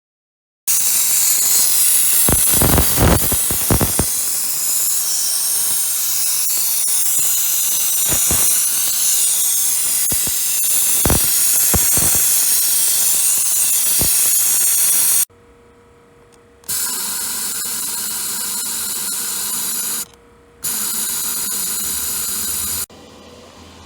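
High-pressure washer spraying into a car air-conditioning evaporator to clean it: a loud steady hiss with a few short surges. It cuts off about fifteen seconds in, then comes back twice in shorter runs with a steady tone under the hiss, and a quieter steady noise is left near the end.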